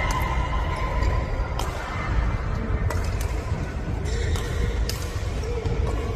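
A badminton rally in an indoor hall: several sharp racket-on-shuttlecock hits, one every second or two, over a steady low rumble.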